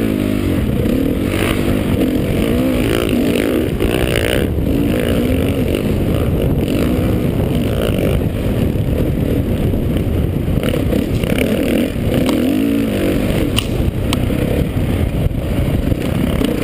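Honda CRF450R dirt bike's four-stroke single-cylinder engine, heard from the rider's helmet, revving up and down again and again as it accelerates and shifts along a sandy track, with wind rushing over the microphone.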